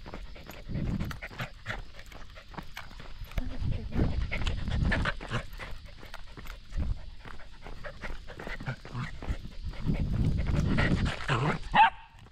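Shetland sheepdog panting as it trots on a leash, with quick footsteps on the paving. A brief, sharp, high sound comes just before the end.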